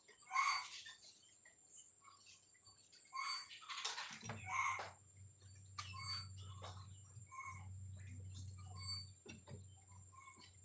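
Small birds chirping in short calls every second or so over a steady high-pitched whine, with a low hum in the middle.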